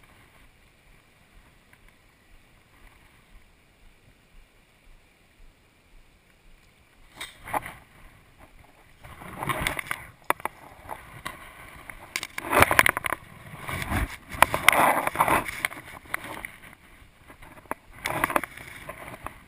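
Faint steady river flow, then from about seven seconds in, repeated bursts of close rustling and scraping as hands work the fly rod and line right beside the chest-mounted camera.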